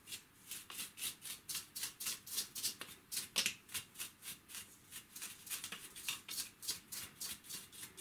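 A small brush scrubbing dust off the outer shroud of a Dyson V7 cordless vacuum in quick, regular strokes, about three to four a second, with one sharper stroke about three and a half seconds in.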